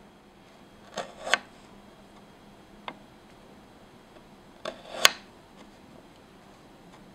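Tiny kitchen knife slicing a small potato on a miniature wooden cutting board: a few short, sharp knocks of the blade through the potato onto the board, a pair about a second in, one near three seconds and a louder pair about five seconds in.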